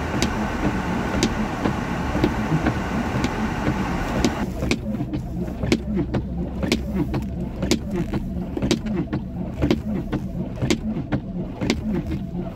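Inside a car driving slowly through deep, unplowed snow: a steady low rumble of engine and tyres, with frequent sharp clicks and crackles. A steady hiss cuts off suddenly about four seconds in.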